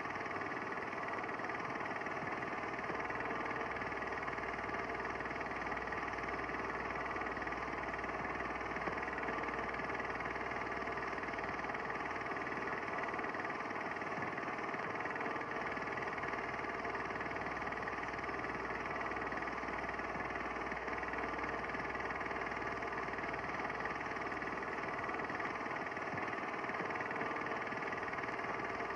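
A steady, unchanging machine-like drone made of many fixed tones over a low hiss, with no breaks or changes in level.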